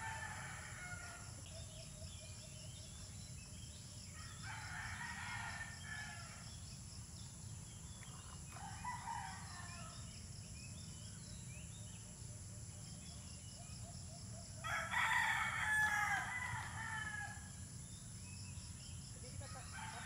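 A rooster crowing three times at intervals, the last crow the loudest.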